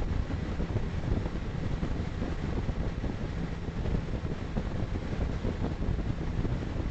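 Steady road and wind noise inside a car cruising at about 112 km/h, picked up by a dashcam's microphone: a constant low rumble with no distinct events.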